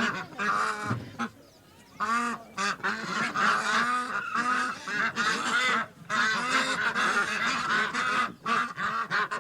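A flock of ducks and geese calling together, with many short overlapping honks and quacks and a brief lull about one and a half seconds in.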